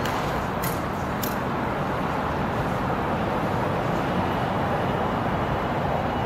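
Steady rushing background noise with no clear tones, broken by two short, sharp clicks in the first second and a half.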